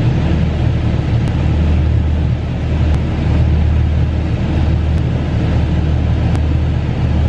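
Steady low roar of an airliner cabin in flight, engine and airflow noise, with a few faint light ticks.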